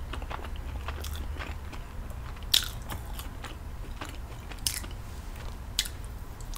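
Close-up chewing and biting of homemade pizza crust, with a few short sharp crunches, the loudest about two and a half seconds in, over a steady low hum.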